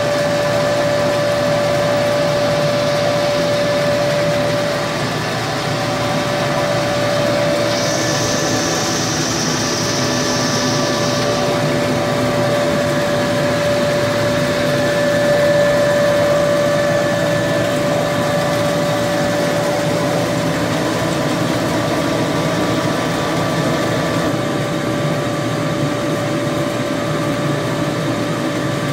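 ZTM-D1300 high-speed paper slitter rewinder running at a steady speed while slitting and rewinding sticker paper: a constant machine hum with a clear steady tone. A higher hiss joins for about four seconds, starting about eight seconds in.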